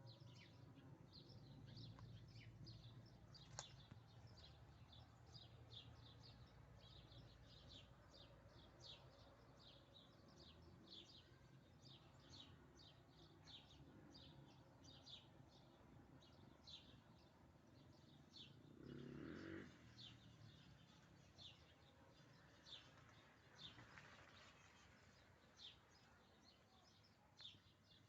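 Faint bird chirping: short high chirps repeated several times a second, thinning out in the second half, over a low steady rumble. A brief louder, lower sound comes about 19 seconds in.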